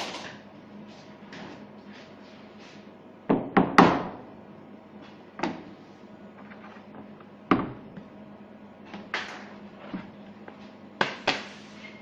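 Irregular knocks and clatters of hard objects being handled, the loudest a quick cluster of three about three to four seconds in and a pair near the end, over a faint steady hum.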